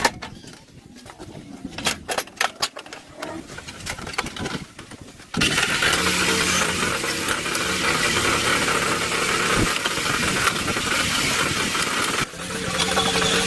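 Scattered clicks and knocks, then about five seconds in a farm tractor engine comes in suddenly and runs steadily, with a brief drop in level near the end before it picks up again.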